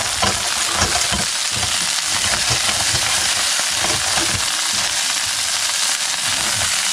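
Spider crab pieces sizzling in hot oil in a stainless steel pot, with the shells knocking and scraping against the pot as they are turned by hand.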